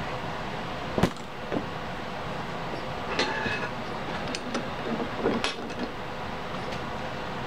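Metal tools and a cast-iron bench vise being handled: a sharp clank about a second in, a short ringing metal rattle around three seconds in, then several clicks and knocks as the vise is opened to free the freshly brazed part. A steady background hiss runs underneath.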